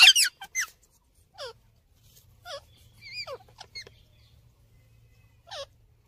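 Rose-ringed parakeets making short, sharp calls: a loud cluster right at the start, then scattered single calls that fall in pitch, about one a second.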